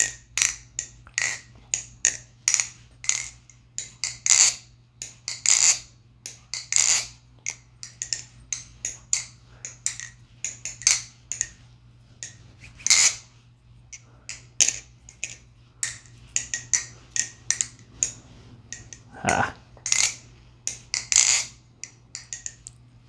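MachineWise Mayrn Lite balisong being flipped: its handles swing and snap shut against each other in sharp metallic clicks and clacks, several a second in irregular runs with short pauses.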